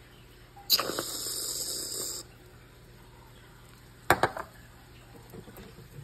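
Aerosol can of whipped cream spraying. A sharp start gives way to a steady hiss lasting about a second and a half, and there is a second short burst about four seconds in.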